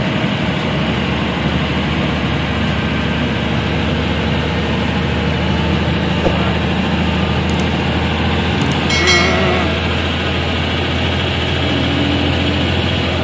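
Inside the cabin of a moving passenger bus: its diesel engine drones steadily under road and tyre noise while the bus cruises. About nine seconds in, a short warbling horn blast sounds.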